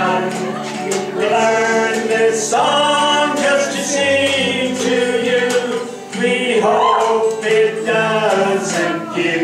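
A group singing a song, with a man's voice prominent, to a strummed acoustic guitar. The notes are held and gliding, with light sharp clicks running through the music.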